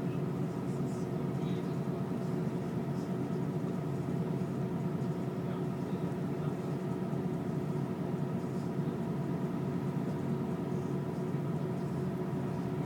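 City bus engine idling while the bus stands in traffic, heard from inside the passenger cabin: a steady hum with a faint whine.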